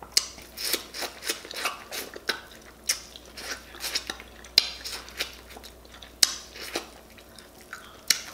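Close-up wet eating sounds from a person eating sauce-smothered corn and potatoes by hand: chewing and lip smacks, an irregular string of short sharp clicks.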